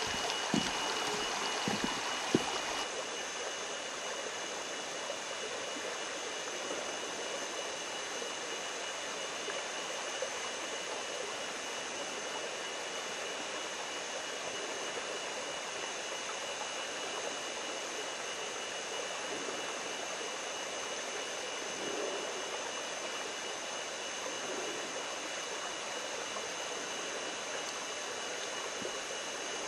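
A creek running, a steady rush of flowing water, with a few light knocks in the first couple of seconds.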